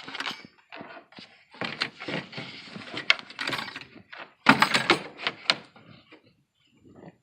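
Metal tools and parts clinking and knocking in a car's engine bay during alternator and drive-belt work: a run of irregular knocks, clicks and rattles, loudest in a cluster about halfway through.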